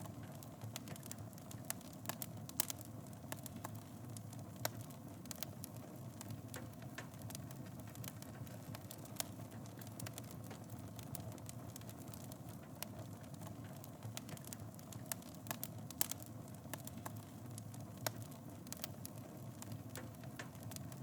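Fire burning in a fireplace: a steady low rumble of flames with irregular sharp crackles and pops throughout.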